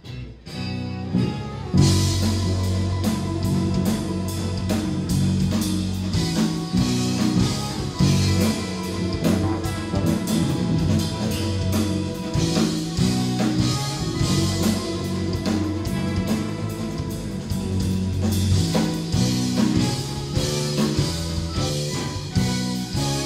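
Live jazz-rock fusion band playing, with electric guitar, electric bass and drum kit. The full band comes in about two seconds in, after a sparser opening, and keeps a busy groove with a prominent moving bass line.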